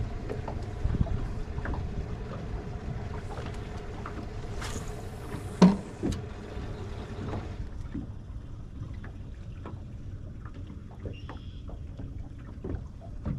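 Wind and water noise on a bass boat, with a steady hum for the first half that stops a little over halfway through, and a single sharp knock near the middle.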